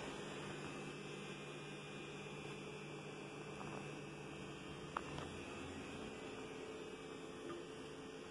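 A steady low hum over faint hiss, with one brief faint click about five seconds in.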